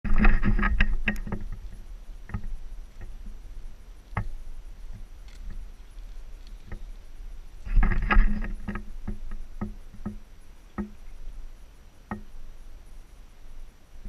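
Irregular wooden knocks and thumps from someone walking on a plank boardwalk with a camera pole in hand, with dense clusters of handling thumps at the start and about eight seconds in and single knocks between.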